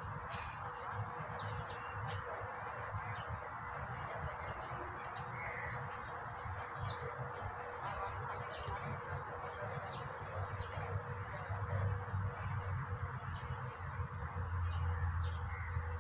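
Riverside ambience: small birds chirping in short calls throughout, over a steady high insect drone and an even rushing hiss, with a low rumble that swells near the end.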